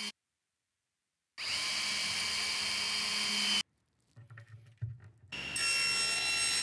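Cordless drill boring a shelf-pin hole in maple plywood for about two seconds, a steady whir. A few faint soft taps follow as metal shelf pins are pressed into the holes, then a table saw starts up and runs steadily from about five seconds in.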